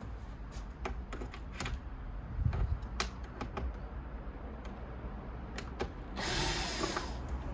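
Scattered clicks and taps of hands working the iMac's front glass panel with a suction cup, then a short scraping hiss about six seconds in.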